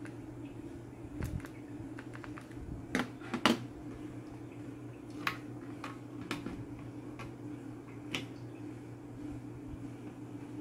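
Scattered sharp plastic clicks and taps as hands handle the cable connectors and wiring on an opened flat-screen TV's main board, the loudest a close pair about three and a half seconds in, over a steady low hum.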